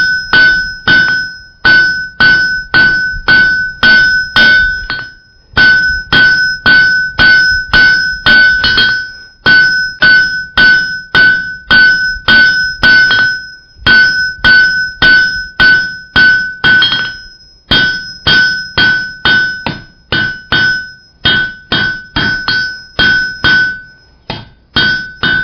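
Hand hammer striking a red-hot iron bar on an anvil, about two to three blows a second in runs of several seconds with brief pauses, the anvil ringing with a clear steady tone between blows. The smith is drawing out the square taper of a spoon's handle.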